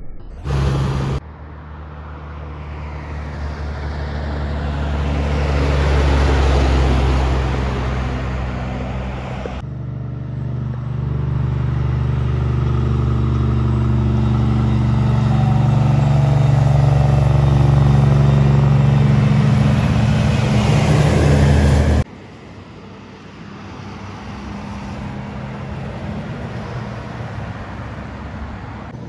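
Heavy semi-trailer trucks passing close by one after another, their diesel engines droning deep and steady as each one swells and fades. The sound cuts abruptly between passes, and the loudest pass ends suddenly about two-thirds of the way through.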